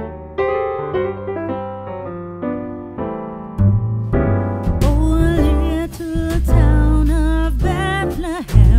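Background music: a song opens with solo piano notes, then about halfway through bass and drums come in and a voice begins singing.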